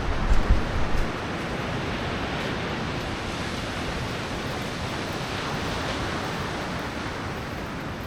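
Sea surf washing steadily on a beach, with wind gusting on the microphone for about the first second.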